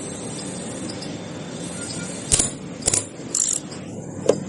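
Metal hand tools and engine parts clinking against each other while a motorcycle engine is being taken apart: several sharp metallic clinks in the second half, over a low steady background.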